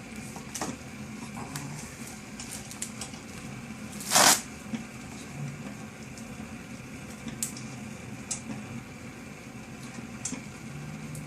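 Light scattered clicks and taps from handling and adjusting a bolted brick-support brace, with one louder short rush of noise about four seconds in, over a steady low hum.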